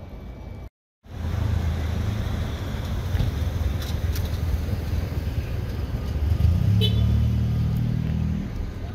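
A road vehicle's engine runs as it drives through city traffic, after a brief cut-out in the sound just under a second in. Its low engine note grows louder and more tonal about six and a half seconds in, then eases off near the end.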